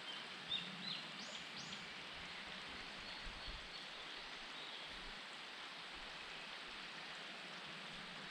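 Steady rushing of a mountain stream, with a few short, high songbird call notes in the first two seconds and fainter chirps a little later.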